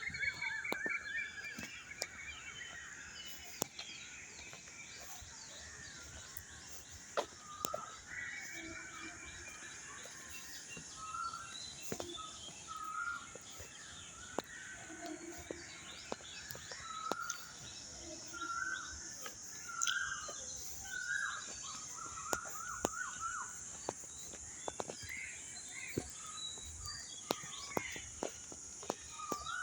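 Several birds chirping and calling in short, repeated phrases, over a steady high hiss with scattered sharp clicks.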